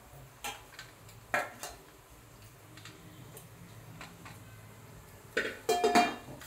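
Steel plate and metal grater clinking and knocking as a sandwich is handled on the plate: a few scattered light knocks early on, then a louder cluster of clattering near the end, one clink ringing briefly.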